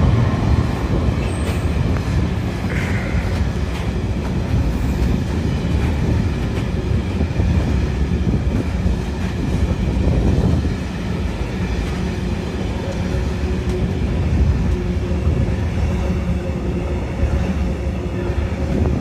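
Freight wagons of a Network Rail engineering train rolling steadily past at close range: a continuous wheel-on-rail rumble with a faint steady whine over it.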